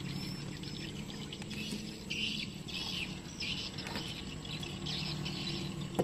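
A bird chirping in a quick series of short high calls, about two a second, starting about two seconds in, over a steady low hum.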